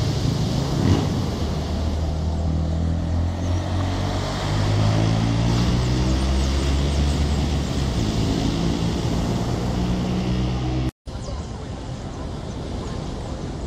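A steady low engine drone with several low pitched tones, over the hiss of surf and wind. The sound drops out for an instant about eleven seconds in, after which only the surf and wind remain.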